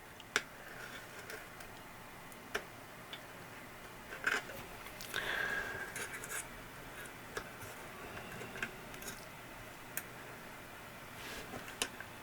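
Chip lifter prising a socketed IC, the C16's TED chip, out of its socket on the circuit board: a few sharp, scattered metallic ticks and clicks, with a brief scraping stretch about five seconds in.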